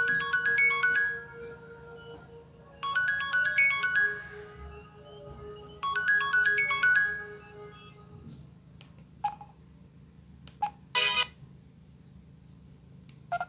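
An LG ringtone playing from a Samsung SGH-A767 Propel phone's speaker: a quick stepping tune over a held low note, the phrase repeating three times about three seconds apart, then stopping about eight seconds in. A few clicks and a short burst of noise follow.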